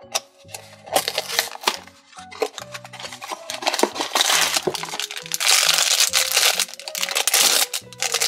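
Cardboard blind box torn open by hand, then a black foil bag crinkled and rustled as it is handled, with a dense crackle through the second half. Background music plays underneath.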